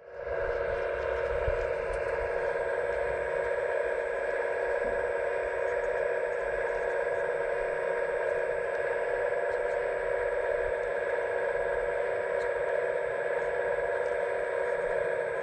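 Hydraulic pump of a radio-controlled Liebherr A918 model excavator running with a steady whine while the arm and bucket move.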